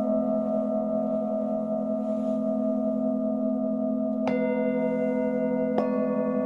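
Singing bowls ringing with a sustained, wavering hum. A bowl is struck about four seconds in and again a second and a half later, each strike adding a fresh higher ring over the drone.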